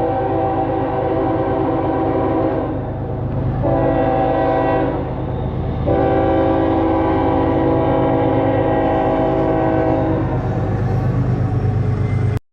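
Train horn sounding a chord of several notes in three blasts, a long one, a short one, then a long one of about four seconds, over the steady rumble of the passing train.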